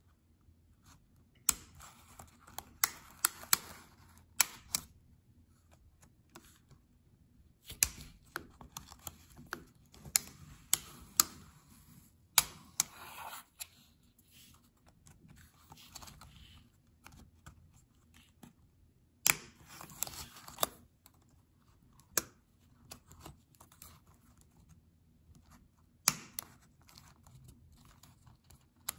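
Plastic pry pick clicking and scraping against a Surface Book 1 laptop spacebar as its clips and metal stabilizer bars are worked loose, in several bursts of sharp clicks separated by quiet pauses.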